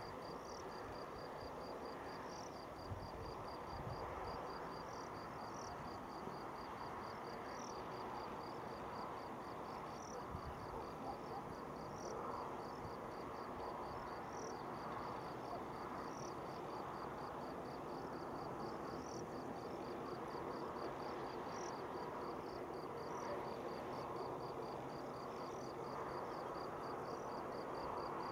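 Steady distant aircraft engine noise from airliners taxiing on the airfield, with a cricket chirping in a fast, even rhythm throughout.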